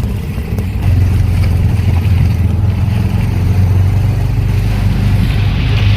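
Steady engine and road noise of an auto-rickshaw on the move, with a constant low hum.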